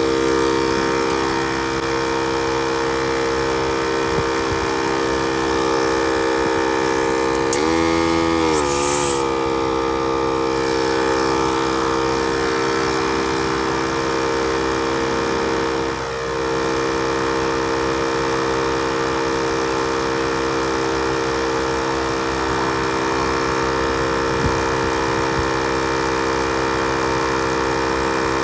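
Portable tire inflator pump running steadily as it pumps a car tire up toward 35 psi. About eight seconds in its pitch briefly sags and recovers, with a short hiss.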